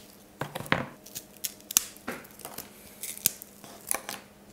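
Brittle honeycomb toffee (caramel soufflé cooked to hard crack) being snapped apart by hand: a series of about a dozen sharp, crisp cracks and crunches at irregular intervals.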